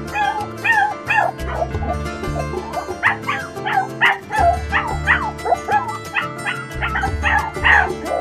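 A West Highland White Terrier crying at being left alone: a quick string of high whines and yips, over music with a steady bass line.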